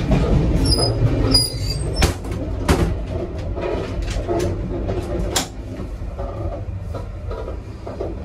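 Steady low rumble of a moving passenger train heard inside the coach, with sharp metal clicks and knocks from the toilet door and its latch about two seconds in, just before three seconds, and just past five seconds.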